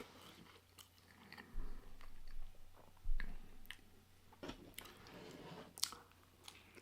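Close-miked chewing and biting of a pulled pork sandwich, with scattered small mouth clicks and two dull low bumps about a second and a half and three seconds in.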